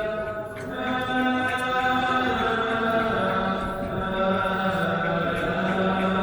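Voices chanting on long held notes, the pitch stepping to a new note about a second in and again around three seconds in.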